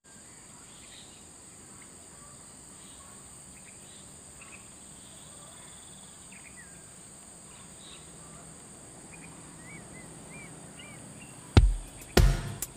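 Outdoor ambience with a steady high-pitched insect trill and scattered short bird chirps. About eleven and a half seconds in, loud drum beats of music cut in, several hits in quick succession.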